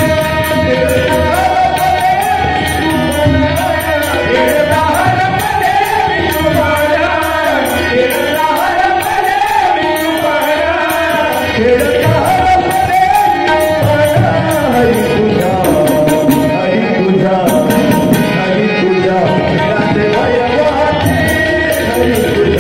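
Devotional bhajan: male voices singing over harmonium and tabla, with a steady beat of high clashing strikes that drops out briefly about three quarters of the way through.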